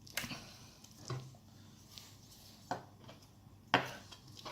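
A knife cutting up a raw chicken on the bone and knocking against the cutting board four times.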